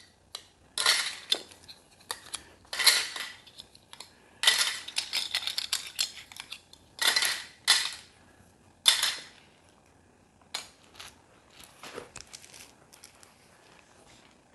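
Loose plastic LEGO pieces clattering and rattling as they are sifted and pushed about by hand, in several bursts over the first nine seconds, then a few fainter clicks.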